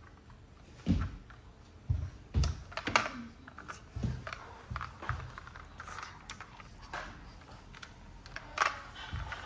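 Irregular light knocks and clicks, about a dozen, unevenly spaced, the loudest about a second in, around two to three seconds in, and near the end.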